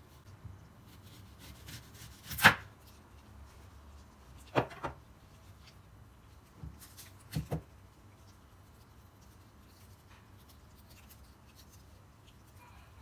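Knife cutting through a raw onion onto a wooden cutting board, and onion slices being handled on it: a sharp knock about two and a half seconds in is the loudest, followed by two pairs of softer knocks around five and seven and a half seconds in.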